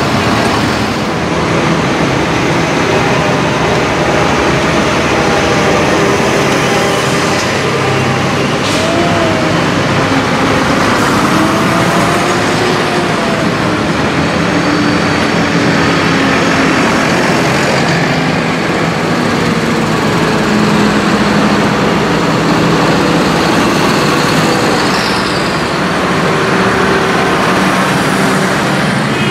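Diesel engines of large modern farm tractors, among them a Fendt and a Valtra, running as the tractors drive past one after another, their engine pitch rising and falling as they pull away.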